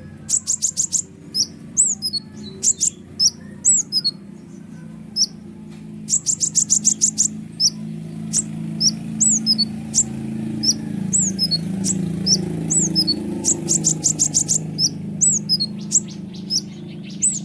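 Kolibri ninja sunbird singing: repeated bursts of very fast, high trills alternating with sharp falling whistled notes, over and over. A low rumble runs underneath, louder in the middle.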